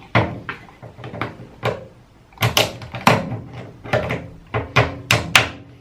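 Plastic washing-machine drain pump assembly and its hoses being handled: a string of irregular sharp knocks and clicks, about three a second.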